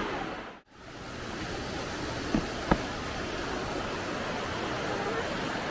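Steady rushing noise of water. It cuts out briefly about half a second in, and two short knocks come a third of a second apart near the middle.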